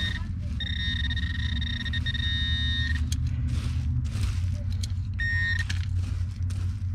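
Metal detector giving a steady high electronic target tone for about two seconds, then a short second tone about five seconds in. A steady low rumble lies underneath, with a few short clicks and scuffs between the tones.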